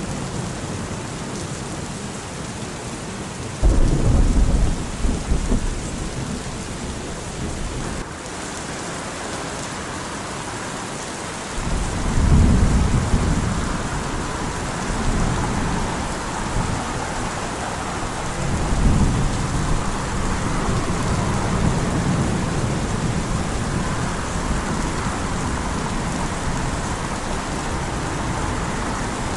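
Steady heavy rain with rolling thunder. A rumble of thunder comes a few seconds in, then a longer spell of rumbling from about twelve seconds on, swelling twice.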